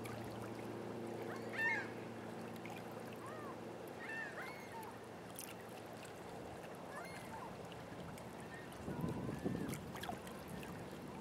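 Birds calling with short honks, several times, over a steady low motor hum that fades after a few seconds. Wind gusts buffet the microphone near the end.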